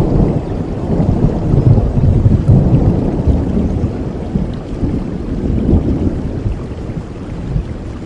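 A long roll of thunder rumbling over steady rain. It swells in the first second, peaks about two to three seconds in, and fades away toward the end.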